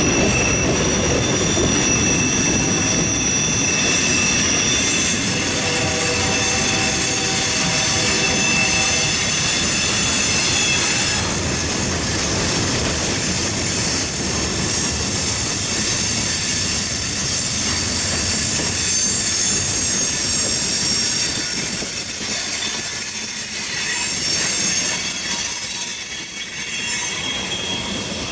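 Train rolling past, its steel wheels squealing against the rails in several high, steady tones over the continuous rumble of the cars.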